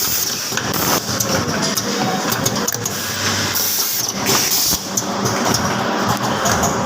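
Automatic soldering machine for USB-to-micro-USB cables running, a steady mechanical clatter of rapid clicks over a low hum.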